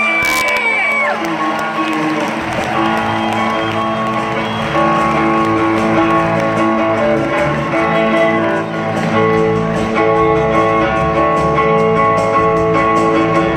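Live country band playing on a concert PA, acoustic guitar to the fore, with electric bass coming in about two seconds in. Crowd whoops over the first second.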